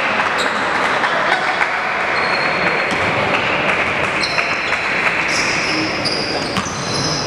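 Basketball game in a large hall: a ball bouncing and sneakers squeaking on the hardwood court, over a steady noisy din of the hall. The squeaks come mostly in the second half.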